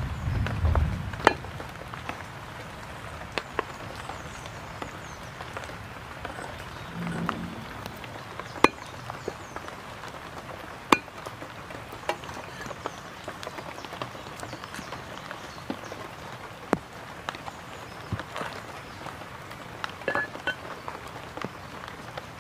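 Water splashing onto a wooden chopping block, then a heavy cleaver cutting fish on a tree-stump block: single sharp knocks every few seconds over a steady background hiss.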